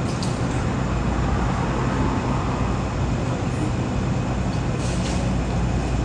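Steady low hum with hiss, an outdoor background rumble with no clear single source, and a brief higher noise about five seconds in.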